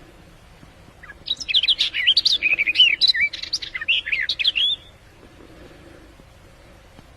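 Recorded song of the songbird known in Arabic as the fig bird (asfour al-tin): one burst of quick, varied chirping and warbling phrases that starts about a second in and stops about five seconds in. It is a lure call played to attract the bird for hunting.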